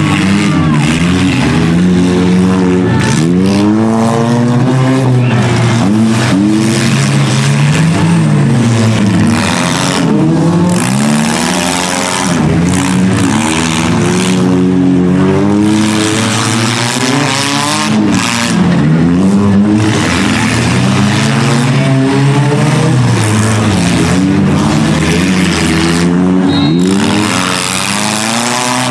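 Several demolition derby cars' engines revving up and down at once, their pitches rising and falling over one another, loud throughout.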